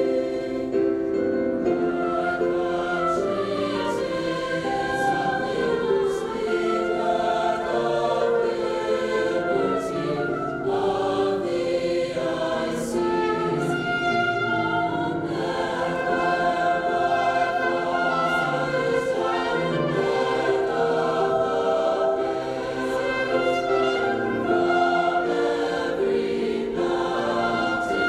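A choir singing, with held notes that change every second or so and no break.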